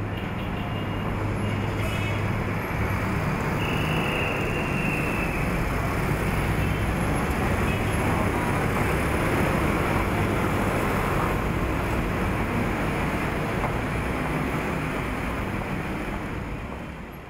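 Steady city street traffic noise from cars, buses and scooters, with a short high squeal about four seconds in; it fades out near the end.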